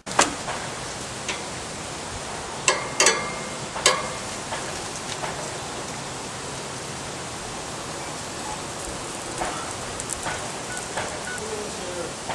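Metal barbecue tongs clacking against the grill, several sharp clicks in the first four seconds, over a steady hiss.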